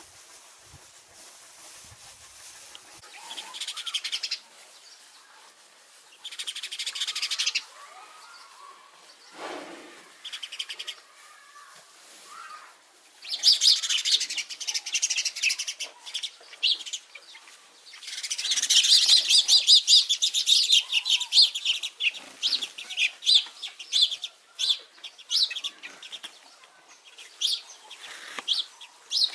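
House sparrows chirping in bouts of rapid, high-pitched chirps, with the longest and densest runs in the middle of the stretch, breaking up into separate single chirps near the end.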